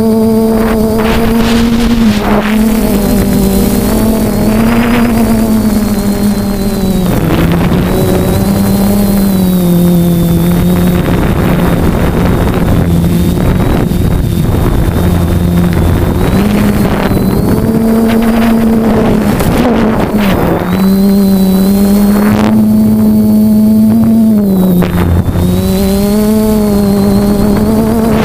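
DJI F450 quadcopter's E300 brushless motors and propellers buzzing in flight, heard up close from a camera on the frame. The pitch wavers with throttle and dips twice, about a quarter of the way in and again past two thirds, over rushing air noise.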